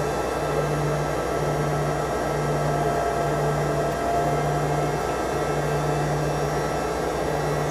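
Yakovlev Yak-40's engines running at taxi power, heard inside the passenger cabin as a steady rushing noise. A low hum cuts in and out about once a second.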